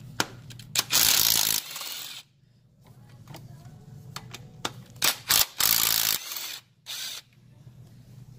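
Ratcheting and metallic rattling in several short, loud bursts, with a few sharp clicks, as the timing chain guide is worked loose on a Honda K24 engine.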